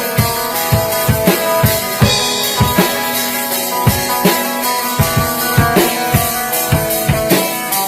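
Instrumental stretch of a rock band's demo recording: a full drum kit plays a steady, driving beat of kick and snare under sustained chords.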